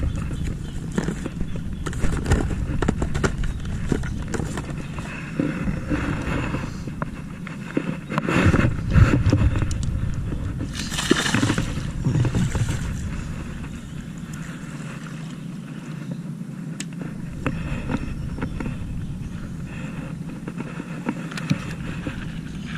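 Rustling and handling noise close to the microphone as a fish is handled in long grass, with small clicks and a low rumble of wind on the microphone. There are louder rustling bursts about eight and eleven seconds in.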